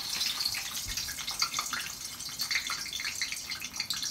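Chips frying in a pan of hot oil: a steady, crackling sizzle with many small pops.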